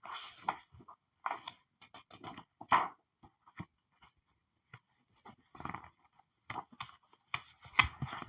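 Paper pages being flipped: a string of short rustling swishes at an irregular pace, with a pause of about a second and a half midway.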